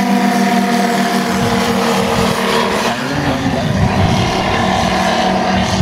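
Twin piston engines of a 1/3-scale radio-control B-25 Mitchell bomber model running at takeoff power as it rolls and lifts off, a loud steady engine drone.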